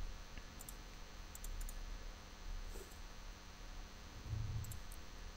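Faint clicks of a computer mouse, a handful spread through the stretch, over a low steady hum.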